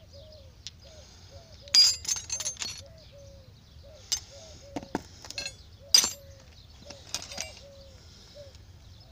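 Metal spanners and wrenches clinking and knocking together as they are gathered up in a cloth bundle, in several sharp clatters, the loudest about two seconds in and again about six seconds in.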